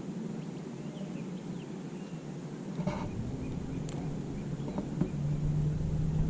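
A steady low motor hum with a few short bird chirps. About three seconds in, a low rumble joins, and a couple of sharp clicks stand out.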